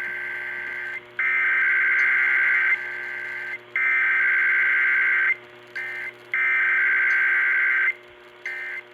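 Emergency Alert System SAME header data bursts played over a radio broadcast, marking the start of an EAS test. The loud burst comes three times, each about a second and a half long with about a second between, with fainter bursts of the same tones in the gaps. A steady low hum runs underneath.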